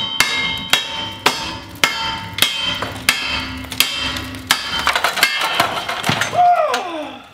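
Steady hammer blows on metal, about three every two seconds, each one ringing. Near the end comes a downward-sliding squeal as a porch post comes loose.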